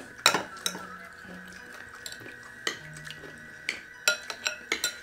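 Metal ladle and spoons clinking against a glass soup bowl and china plates as bakso soup is served: one sharp clink about a quarter second in, then several more in the last two seconds, over a faint steady high tone.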